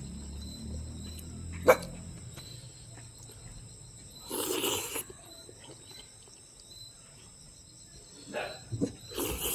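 Eating sounds: a sharp click about two seconds in, a short noisy mouth sound around the middle and a few more near the end, over a faint steady high whine.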